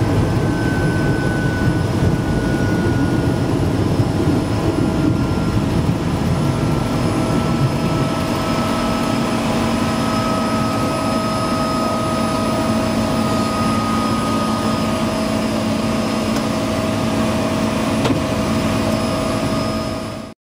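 De Havilland Otter floatplane's engine and propeller running steadily at low power while it taxis on the water, with a thin whine that slowly drops in pitch. The sound cuts off abruptly just before the end.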